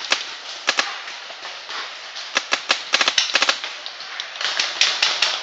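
Paintball markers firing in quick bursts of sharp pops: a few shots early on, then a rapid string about two and a half seconds in and more near the end.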